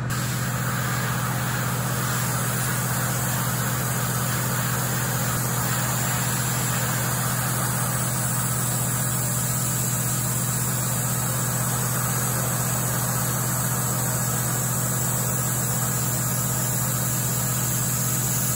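Airbrush compressor running steadily, humming under the hiss of air from a gravity-fed airbrush spraying thinned primer.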